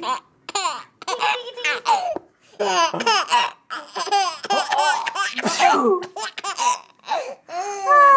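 Baby laughing in a run of short giggling bursts with brief pauses between them, ending in a loud, high squeal that slides down in pitch.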